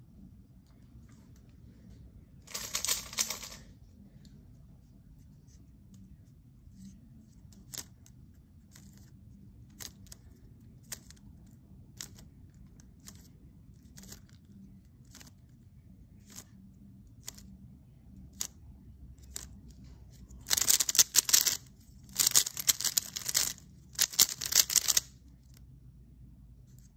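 Weilong v9 Maglev 3x3 speedcube being turned by hand: single turns clicking about once a second, a short flurry of turns about three seconds in, then three fast bursts of rapid clacking turns near the end, the OLL 34 algorithm executed at speed.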